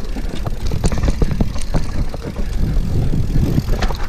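Mountain bike riding down a bumpy dirt singletrack: a continuous low rumble with frequent rattles and clicks as the bike bounces over the rough ground.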